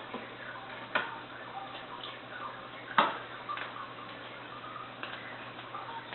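Running aquarium sump: a steady low pump hum under small irregular trickling and bubbling sounds of water moving through the chambers and protein skimmer. Two sharp clicks about one and three seconds in, the second the louder.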